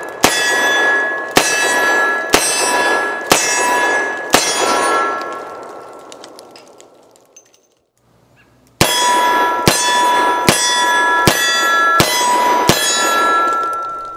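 A Ruger GP-100 Match Champion .357 Magnum revolver is fired double-action at a steel silhouette target in two strings. First come five shots about a second apart, then, after a pause, six quicker shots. Each hit sets the steel plate ringing with a metallic ring that lingers and fades away after each string.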